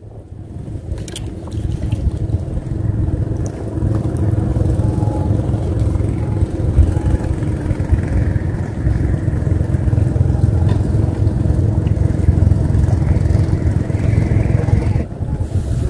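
Small boat's engine running steadily as the boat motors along, picking up about two seconds in.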